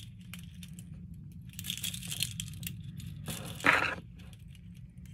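Light clicks and rustling as small aluminium bit holders on metal split rings are handled and slid onto a carabiner, with a louder handling noise about three and a half seconds in.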